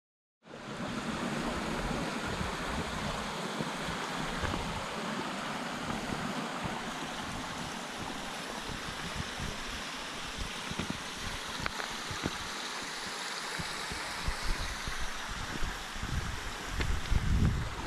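Rushing stream water, a steady even rush that cuts in abruptly about half a second in, with low wind buffeting on the microphone that grows stronger near the end.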